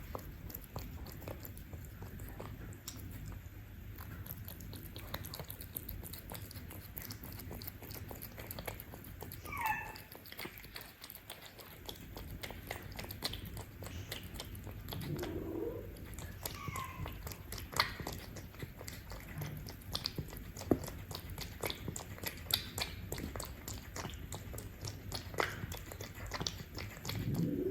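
Cats eating up close: wet chewing and crunching with many quick clicks of teeth on food, broken by a few short cries.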